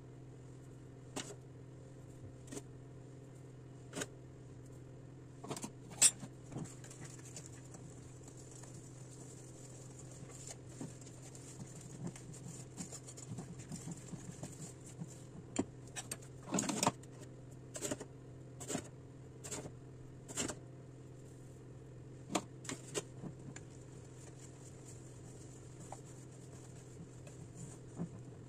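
A sieve and a spoon clinking and scraping against a glass mixing bowl as flour is sifted and stirred into a batter. The sharp taps are scattered at first and come thicker partway through, over a steady low hum.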